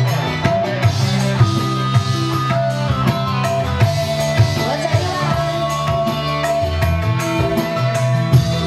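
Live dangdut band music: an electronic keyboard plays a melody over a steady drum beat.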